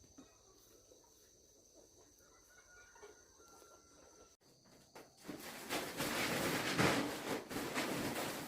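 Insects trilling steadily and faintly. After a sudden break about four seconds in, a loud rustling, crackling noise starts and carries on to the end.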